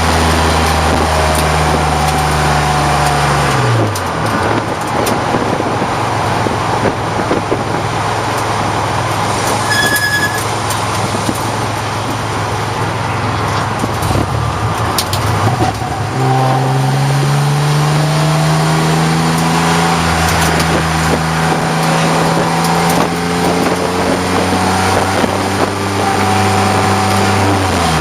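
1989 BMW 535i race car's straight-six engine running hard. About four seconds in its note falls away, leaving mainly a noisy rush with a brief high beep partway through. The engine then comes back on strongly, its pitch slowly climbing, and drops briefly near the end.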